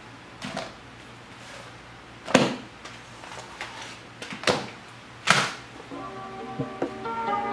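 Notebooks, a planner and a pencil case set down one after another on a desk: several soft thuds with paper rustle, the loudest about two and a half seconds in, over a low steady hum. Soft music comes in about six seconds in.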